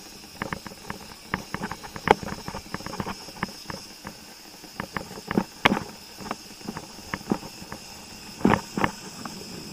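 Irregular clicks and knocks from a bike-mounted camera and e-bike rattling over cracked asphalt, several sharper knocks standing out, over a steady high-pitched insect drone.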